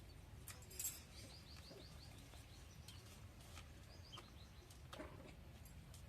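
A bird calling in a quick run of about eight short, high chirps, over a low steady background hum. A few soft clicks, the loudest a sharp click just under a second in.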